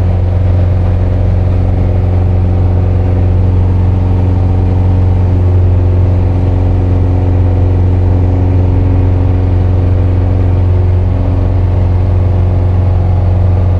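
Piper PA-28's piston engine and propeller running steadily as the plane climbs away after takeoff, a loud, even drone heard inside the cabin.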